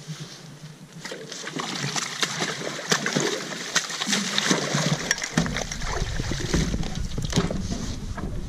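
Water splashing and slapping as a gaffed halibut thrashes at the surface and is hauled up against the boat's side, with many sharp knocks and slaps. From about five seconds in, a low steady rumble comes in under the splashing.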